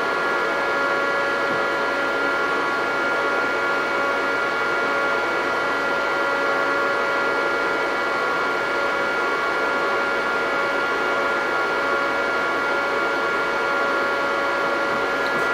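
Cooling fans of a Butterfly Labs 50 GH/s ASIC bitcoin miner running steadily while it mines: an even rush of air with several steady whining tones.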